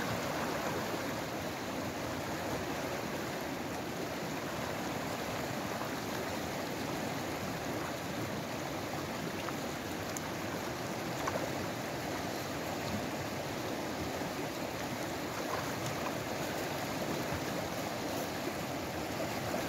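Fast-flowing river rushing steadily over rapids.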